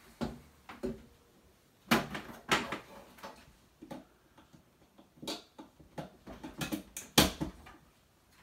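Irregular knocks and clatter of a stainless steel brewing kettle being handled while a power cable is lifted out of it, with the loudest knocks about two seconds in and again near the end.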